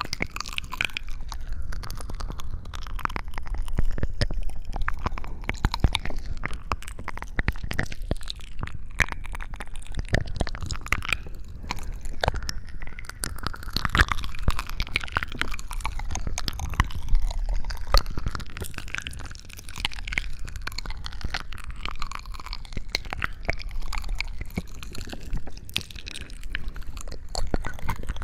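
Close-miked ASMR crunching and crackling: a dense, unbroken run of small clicks and crinkles.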